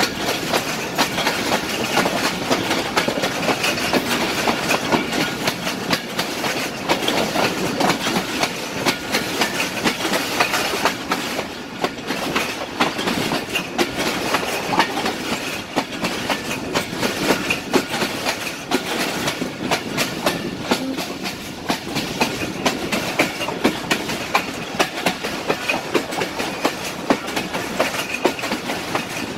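Passenger train running at speed, heard from aboard the moving coach: the wheels rattle and click over the track against a continuous rumble and rush of noise.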